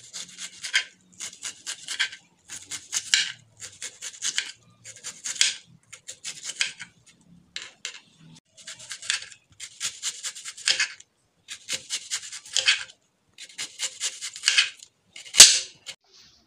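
Kitchen knife chopping red onion on a glass cutting board: short runs of rapid, sharp taps about once a second, with one louder knock of the blade on the board near the end.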